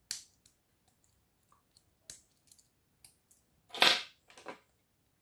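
Small clicks of a cylindrical cartridge fuse pressed into the spring-steel clips of a fuse-holder carrier, with faint ticks of parts being handled. About four seconds in there is a louder, brief clatter of small plastic and metal parts on the table.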